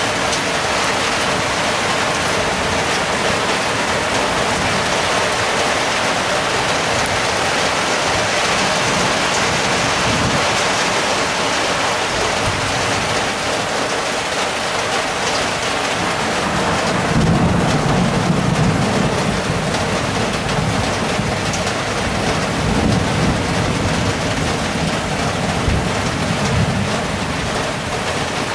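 Heavy downpour hissing steadily in a thunderstorm, with a long low roll of thunder that begins a little past halfway and rumbles on for several seconds, swelling again before dying away.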